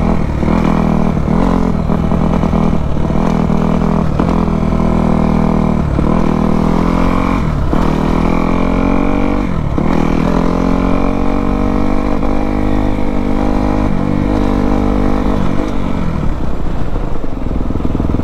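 Kawasaki KX250F dirt bike's single-cylinder four-stroke engine being ridden hard. Its pitch climbs and drops sharply again and again through the first ten seconds as it is revved out and shifted up, then holds steady, and it drops lower near the end as the throttle eases off.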